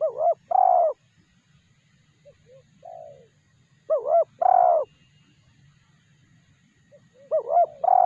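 Spotted dove cooing: three phrases a few seconds apart, each two short hooked notes followed by a longer, louder note, with softer notes in between.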